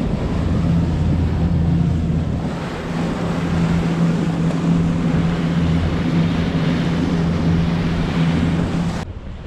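Fishing boat's outboard motor running at speed, a steady low hum, with water rushing past the hull and wind over the microphone. It cuts off abruptly near the end, leaving only wind.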